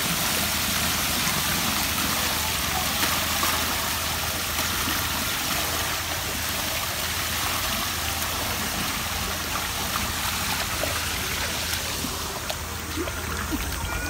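Water pouring steadily from spouts in a stone wall into a shallow wading pool and spilling over a stone step: a constant rushing, splashing flow.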